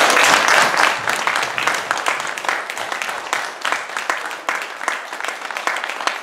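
Audience applauding with dense, steady clapping, loudest at first and easing a little.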